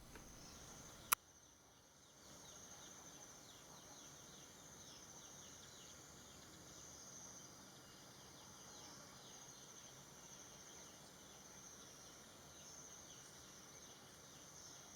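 Faint, steady, high-pitched insect chirring with a fine rapid pulse. A single sharp click comes about a second in.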